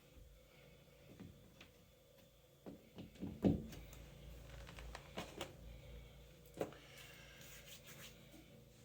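Scattered soft knocks and scuffs from hand-packing epoxy putty into a hole in drywall, with a cluster of knocks about three seconds in, the loudest at about three and a half seconds.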